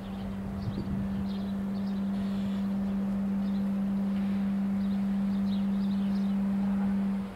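A steady low hum held at one pitch, dropping in level near the end, with faint high bird chirps above it.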